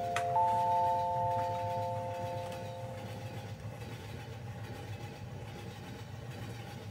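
An electronic chime of several notes rising in steps, its highest note entering just after the start and all ringing out over about three seconds, with a sharp click near the start. Under it runs the steady low rumble of a train in motion.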